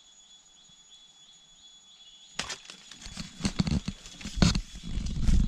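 Footsteps crunching through dry bamboo leaf litter and brush, with stems and twigs crackling and snapping. The footsteps start suddenly about two and a half seconds in, in loud irregular crunches and thuds.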